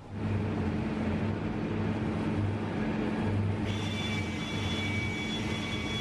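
Electric motor of a powered bead roller running steadily while sheet steel is fed through its rollers to roll a lip. It starts abruptly as a low, pulsing hum, and a high steady whine joins in about two-thirds of the way through.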